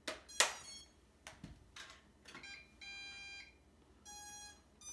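A few sharp clicks as the MJX Bugs 2W drone is switched on. About two seconds in come three short electronic beeps, each lasting about half a second: the power-up tones of the drone and its controller.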